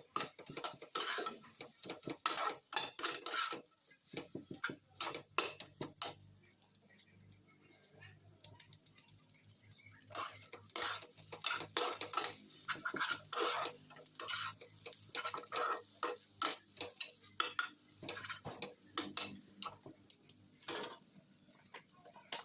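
A metal utensil clinking and scraping against a dish in quick irregular runs. There is a quieter gap between about 4 and 10 seconds in.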